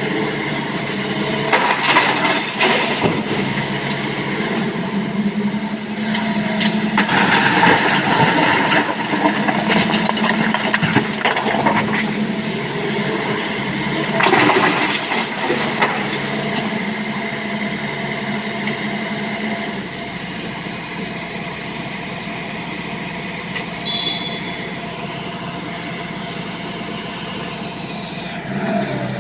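Excavator's diesel engine running steadily under load, with three louder rough stretches of a few seconds each, near the start, about a third of the way in and about halfway. A brief high squeak comes about four-fifths of the way in.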